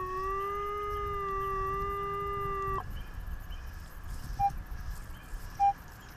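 Minelab CTX 3030 metal detector sounding a steady held tone for nearly three seconds that cuts off sharply, then two short, higher beeps.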